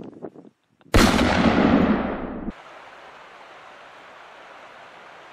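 A rifle shot about a second in, its blast and echo rolling on for about a second and a half before cutting off suddenly. A steady hiss follows.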